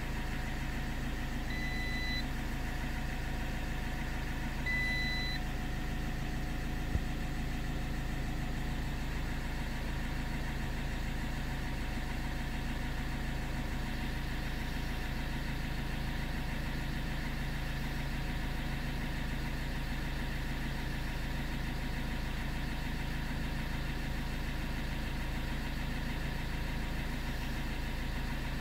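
Car engine idling steadily, with two short electronic beeps a few seconds apart near the start.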